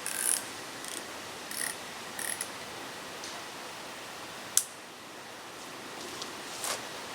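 Fishing tackle being handled while rods are set up: a scatter of small mechanical clicks and rattles, with one sharp click about four and a half seconds in, over a steady background hiss.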